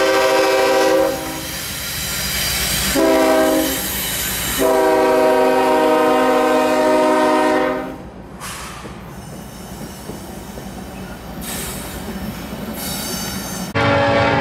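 Union Pacific diesel locomotives' multi-chime horn blowing the end of a long blast, a short blast, then a long blast, the closing long-short-long of a grade-crossing signal. The horn stops about eight seconds in, leaving the locomotives' engines and wheels rumbling past. Near the end the sound cuts suddenly to a louder, lower rumble.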